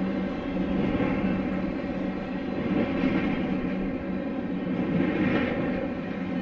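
Union Pacific freight train rolling past: a steady mechanical drone of wheels on rail, with a low hum under it and swells in the noise every second or two.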